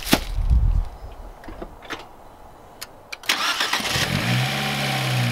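Rustling of packaging with a sharp click at first, then a turbocharged Fiat 124 Spider's engine starting about three seconds in and settling into a steady idle.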